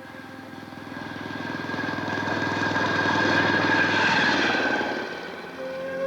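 Engine of a passing rail vehicle, growing louder as it approaches, loudest about three to four seconds in, then fading away. Rising woodwind music notes come in near the end.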